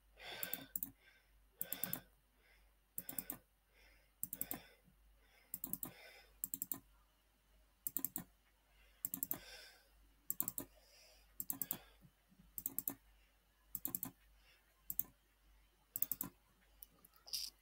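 Computer mouse buttons clicking in small quick clusters about once a second, repeating steadily.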